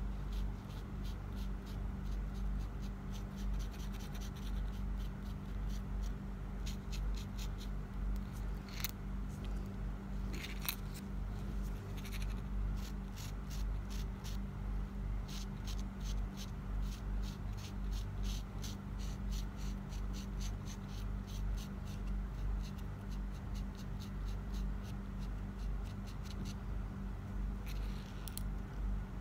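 Gold paint marker tip tapping and scratching on a resin mask's raised details, with many small clicks in quick clusters, over a steady low hum.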